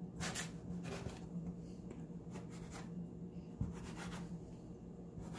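Hands pressing and dividing soft pita dough on a floured countertop: soft rubbing and scraping strokes, and one low thump about three and a half seconds in, over a steady low hum.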